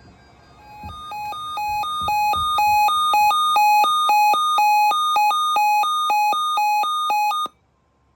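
Weather alert radio's built-in alarm: electronic beeping that alternates between a lower and a higher tone about two or three times a second. It grows louder over the first couple of seconds, then cuts off suddenly near the end. It signals a newly issued severe thunderstorm watch.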